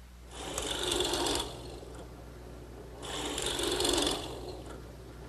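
Drill press running with a plug cutter boring into scrap wood, making two cuts of about a second each over the steady low hum of the motor.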